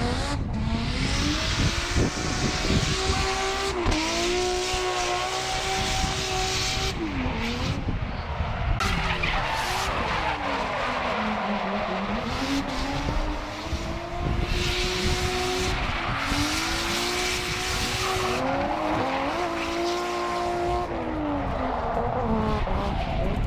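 Drift car sliding through a corner with its engine revving hard, the pitch climbing and dropping again and again with the throttle. Long stretches of tyre squeal run over it.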